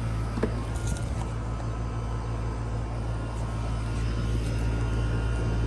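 Outdoor air-conditioner and heat-pump condensing units running together: a steady low compressor hum with fan noise.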